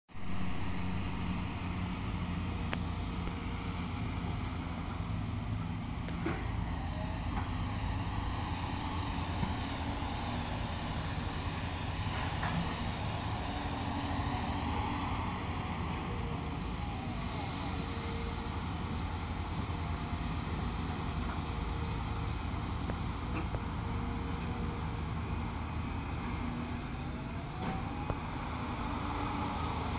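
Diesel engines of a Hyundai crawler excavator and other excavators running steadily under load while digging, with a few short rising and falling whines and a few faint knocks.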